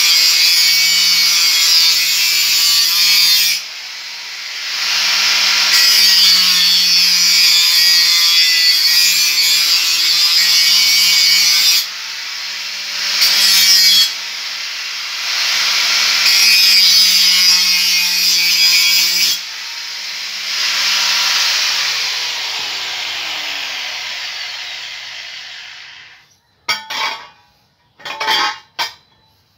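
Angle grinder with a cutting disc cutting through a metal pipe, the cut easing off several times as the disc lifts and spins free. Near the end the grinder winds down with a falling pitch, followed by a few short knocks.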